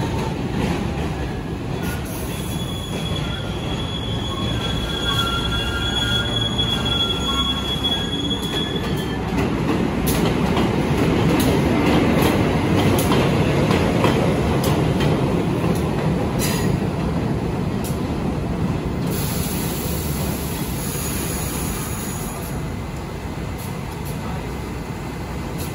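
MTA work train of diesel-electric locomotives (R47 and R156) running through an elevated subway station without stopping. Wheels squeal high for several seconds about two seconds in, then comes a steady rail rumble with scattered clicks of wheels over rail joints, loudest about halfway through as the locomotive passes, easing off toward the end.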